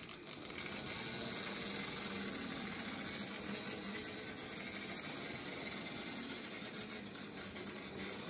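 Märklin H0 model train, a diesel locomotive hauling passenger coaches, running over a bridge: a steady rolling clatter of metal wheels on the track that swells in the first second and then holds.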